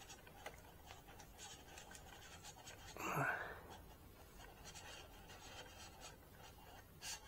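Faint small clicks and light scraping of hand-fitted printer parts on an aluminium extrusion frame, with one short, louder huff of breath about three seconds in.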